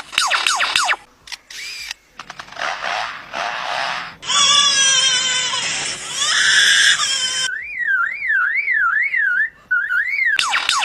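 A lyrebird singing a medley of mimicked sounds: runs of quick, downward-sweeping whistles, a harsh noisy whirring and clicking stretch near the middle, then a tone swinging up and down about three times a second like an alarm, before the falling whistles return near the end.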